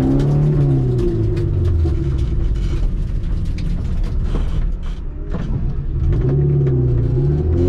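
Honda D14A1 1.4-litre four-cylinder with twin carburettors, heard from inside the cabin, revving up and down hard. It eases off through the middle and pulls strongly again near the end, with sharp clicks and rattles.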